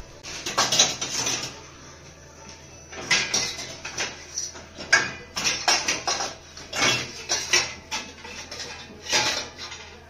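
Stainless steel pots, bowls and plates clanking against one another and the wire rack as they are stacked into a dishwasher, in irregular bursts of metallic clatter with a short lull about two seconds in.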